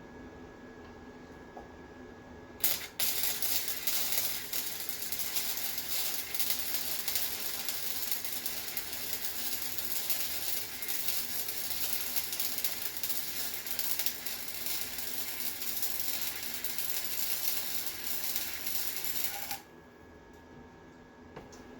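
Flux-core MIG welding arc from a Harbor Freight Titanium Flux 125 welder running a bead on scrap steel. The arc strikes with a sharp pop about three seconds in, crackles loudly and steadily for about seventeen seconds, then cuts off suddenly. The heat is set a little high, enough to blow through the metal. A quieter steady hum runs under it throughout.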